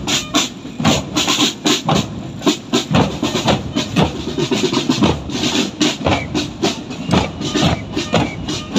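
Marching drum band playing bass drums and snare drums in a steady, driving rhythm of hard, repeated hits.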